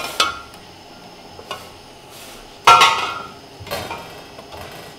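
Glass mason jars of yogurt with metal screw lids clinking and knocking against each other and the steel counter as they are picked up and packed into a cardboard box. About five separate knocks with a short ring, the loudest a little past halfway.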